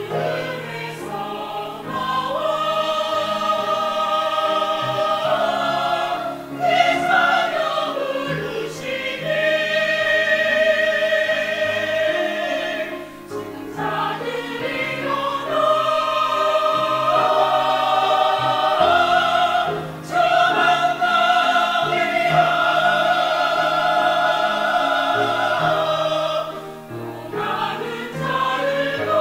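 Church choir singing a Korean hymn-anthem: a solo soprano voice at the start, then the full mixed choir of men's and women's voices singing in sustained phrases.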